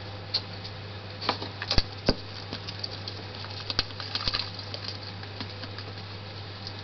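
A small pet's short, sharp coughs and clicks, irregularly spaced, over a steady low hum.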